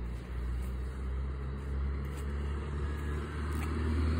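A motor vehicle engine's low hum, growing gradually louder.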